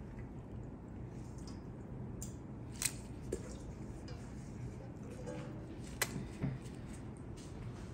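Raw chicken gizzards being dropped by hand into a nonstick pot: soft wet squishes with a few sharp clicks, over a low steady background hum.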